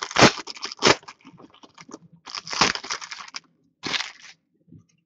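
Foil trading-card pack wrapper crinkling as it is torn open and crumpled by hand, in a few separate bursts.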